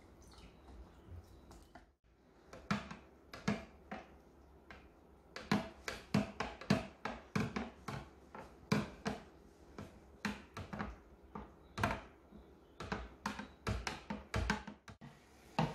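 A long black spatula knocking and clinking irregularly against the sides of a clear pitcher of syrup drink as it is stirred, about two or three knocks a second, starting about two seconds in.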